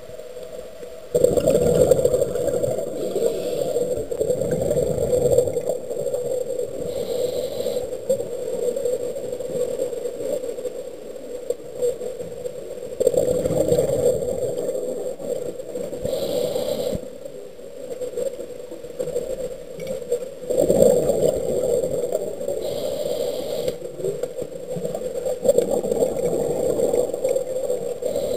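Muffled underwater noise picked up through a small camera's waterproof housing: a steady hum with swells of rushing noise every several seconds.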